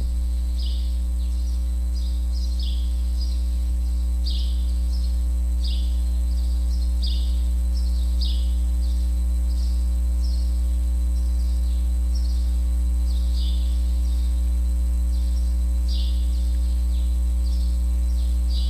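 Steady low electrical hum, with short high chirps that fall in pitch, repeating about once a second.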